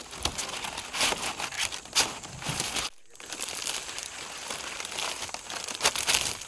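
Fresh green palm fronds rustling and crackling as they are pulled, bent and tucked into a hand-woven basket, with a brief break about three seconds in.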